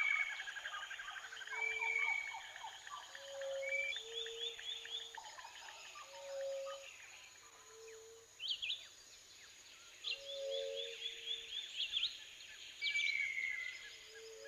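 Several birds singing and calling at once: a low call on two alternating pitches repeats every couple of seconds, under higher drawn-out whistles and quick trilled phrases.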